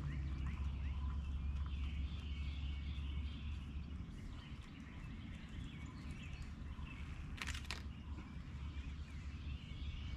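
Backyard ambience: small birds chirping over a steady low rumble, with one brief sharp click about seven seconds in.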